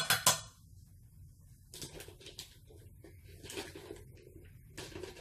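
A metal measuring spoon taps sharply against a stainless steel mixing bowl three times in quick succession. Quieter rustling and handling of a plastic flour bag follows.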